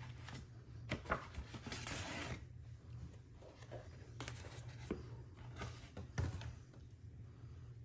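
Paper shopping bag rustling as a white cardboard Apple Watch box is pulled out of it, then scattered light taps and scrapes of hands handling the box.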